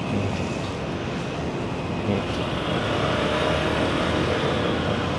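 Road traffic: a vehicle engine running close by over a steady traffic hum, growing a little louder about halfway through.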